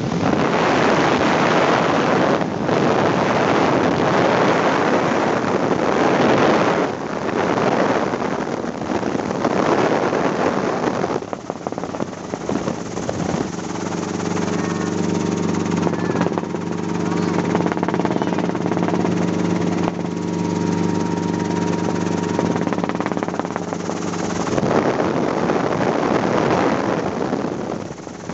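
Helicopter in flight heard from inside the cabin: wind buffeting the microphone as a rough rushing noise, giving way about halfway through to the steady hum of the engine and rotor for about ten seconds, before the wind noise returns near the end.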